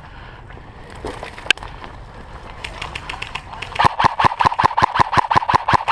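Airsoft gun firing: a single sharp shot about a second and a half in, then from near the end a long, even full-auto burst of rapid clicks, roughly ten a second.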